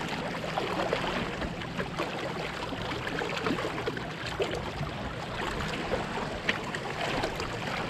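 Water washing and splashing along the hull of a Catalina 22 sailboat under sail: a steady rush with many small splashes.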